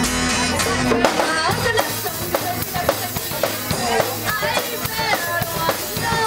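A live punk-rock band playing an acoustic set with a drum kit. About a second in, a held low chord drops away, and the song goes on with steady drum hits and sliding pitched lines of guitar or voice over them.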